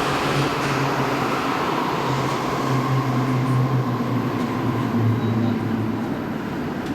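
Sendai Subway Tōzai Line linear-motor train moving at the platform: a steady low hum and rumble, with a faint whine that falls slightly near the start.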